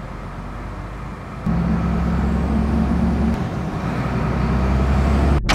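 Heavy truck engine running steadily with a deep rumble, growing louder about a second and a half in.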